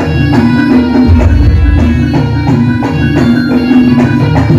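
Jaranan gamelan ensemble playing loudly through a PA: hand-struck kendang drums keep a steady, driving beat over ringing hanging gongs and bronze metallophones.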